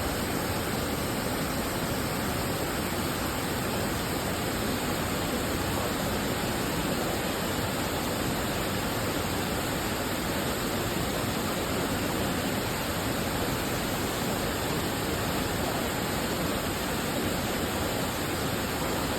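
Waterfall rushing: a steady, even wash of falling water that never changes.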